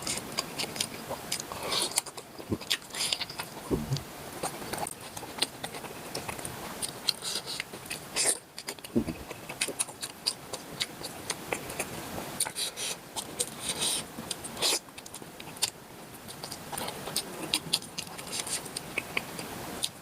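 Close-up eating sounds of cooked octopus: wet chewing, smacking and biting, a continuous run of short irregular clicks and squelches, with a few louder smacks along the way.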